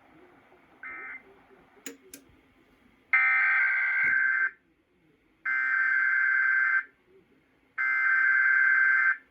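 Emergency Alert System (SAME) digital header: three raspy, warbling data bursts of about a second and a half each, a second apart, the coded header that opens a relayed alert, here a required monthly test. A brief faint burst about a second in and two clicks come before them.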